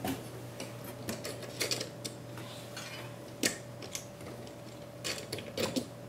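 Scattered light clicks and taps of metal mounting hardware as a Koolance CPU water block is fitted to a motherboard, over a steady low hum.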